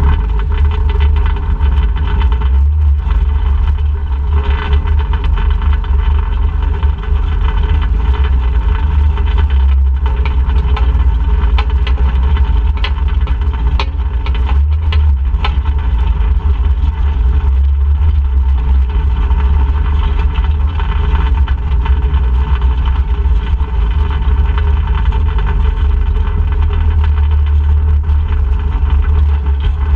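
Off-road vehicle engine running steadily on the trail, over a heavy low rumble.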